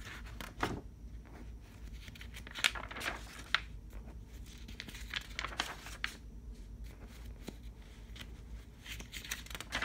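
Paper pages of a picture book rustling and being turned by hand, with scattered short crinkles and light taps.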